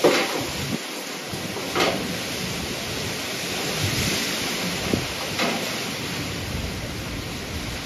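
Heavy rain pouring steadily in a hurricane, with a few brief louder swishes.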